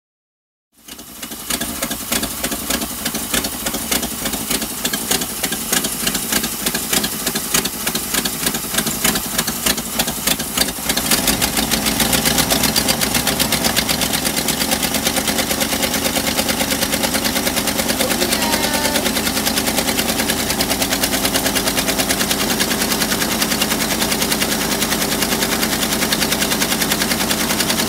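Mopar 413 V8 of a 1972 Superior motorhome running with the engine cover off, just brought back to life after sitting about twenty years. It runs ragged and uneven at first, then settles into a steadier, slightly louder run after about ten seconds.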